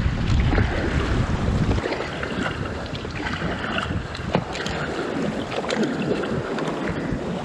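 Choppy water splashing and slapping against a stand-up paddleboard, with scattered short sharp splashes. Wind buffets the microphone, heavily at first, then eases about two seconds in.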